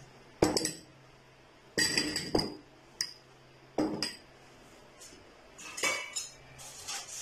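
Glass bowls with steel spoons in them clinking as they are picked up and set down, several separate clinks with a short bright ring.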